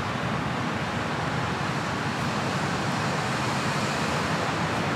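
Steady outdoor background noise: an even, constant rumble with no distinct events.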